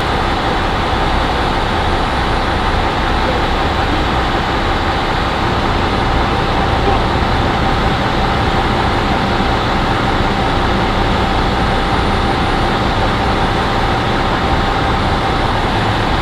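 Steady rumble of an idling vehicle engine with a faint constant whine, unchanging throughout.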